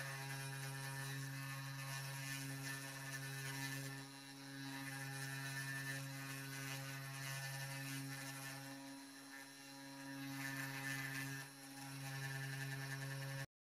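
Spindle motor of an Eleksmill desktop CNC running steadily, a hum with overtones, as a V-bit engraves lettering into a wood block. The hum dips briefly three times and stops abruptly near the end.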